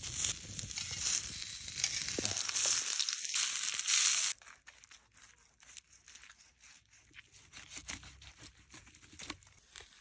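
Potato slices sizzling on a hot cast-iron griddle over embers, a loud steady hiss that cuts off suddenly about four seconds in. After it come quieter crackles and crunches as the crisp skin of a whole roast lamb is carved and pulled away.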